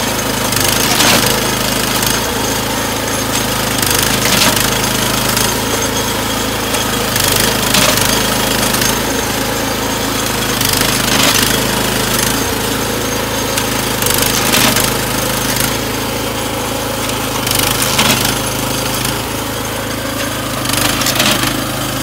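Battery-electric rail clip applicator machine at work, driving steel elastic rail clips home onto the rail: a steady machine hum with irregular sharp metallic clacks every one to few seconds.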